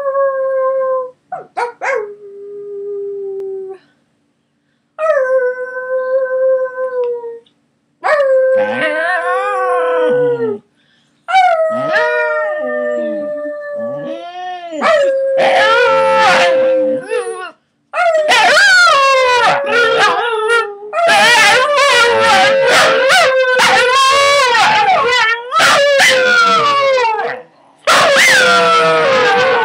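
Scottish terriers howling: first one dog's long, steady howls, then more dogs joining in with wavering, overlapping howls that build into a loud chorus about halfway through, broken by a few short pauses.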